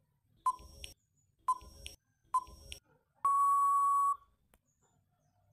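Quiz countdown-timer sound effect: three short beeps about a second apart, then a long steady buzzer tone about three seconds in, lasting nearly a second, that signals time is up.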